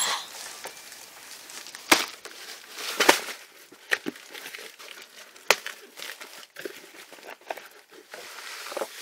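Cardboard box of an artificial Christmas tree being opened and rummaged through: rustling and crinkling, with several sharp knocks, the loudest about two, three and five and a half seconds in.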